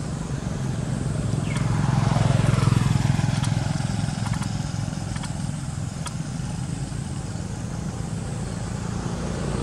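A motor vehicle engine running by, its hum swelling to its loudest about two to three seconds in and then easing back to a steady drone.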